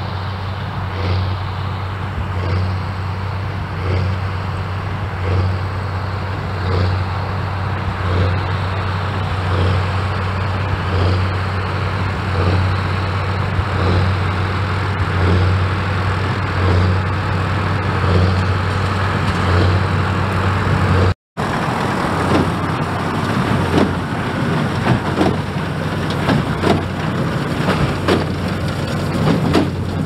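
Straight-piped New Holland six-cylinder tractor engine running under load while pulling a working square baler, with a regular beat about every one and a half seconds. After a brief cut about two-thirds of the way through, the baler is heard close up, with sharper knocks and clatter over the engine.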